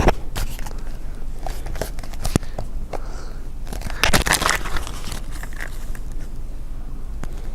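Plastic toy packaging being torn open and crinkled by hand, with scattered small clicks and a louder rustle about four seconds in.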